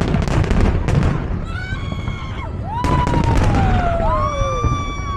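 Fireworks display: sharp bangs at the start and about a second in, with dense crackling bursts and a low rumble. High whistling tones glide over them, one falling slowly in pitch and another held near the end.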